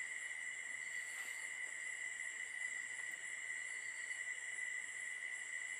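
A pause in speech, filled by a faint, steady high-pitched tone in the background with a lighter hiss under it.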